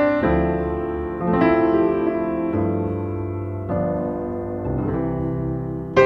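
Background piano music: sustained chords, with a new chord struck about every second.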